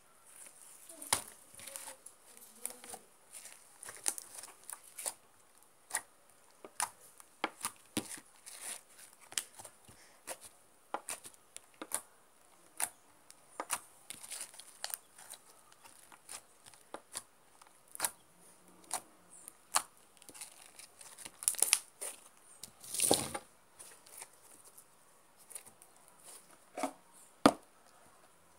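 Homemade slime being stretched and squeezed by hand, giving an irregular run of sticky clicks and crackles, with one longer, louder crackle about two-thirds of the way through.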